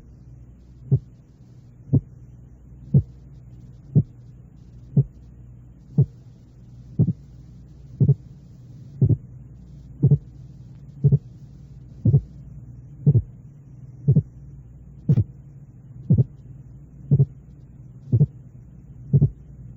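Simulated heart sounds: pairs of 30-millisecond test sounds repeating about once a second, like heartbeats, over a steady low hum. At first the two sounds coincide and are heard as one single sound; then they are split by 0.08 s, a relatively wide split that should be easy to recognise.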